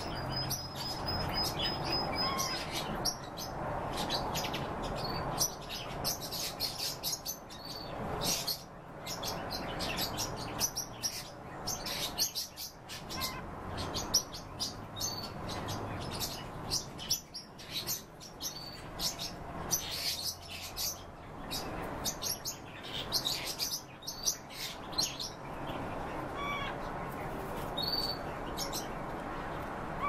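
Pet songbirds chirping continuously with many quick clicks and short whistles, including a held high whistle in the first couple of seconds.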